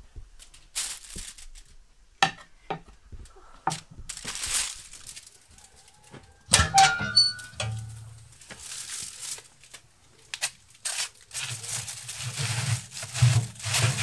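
Irregular clicks, knocks and crinkling of aluminium foil and a metal baking tray being handled. Near the end comes the scrape and clank of the tray sliding into a wood-burning stove's oven.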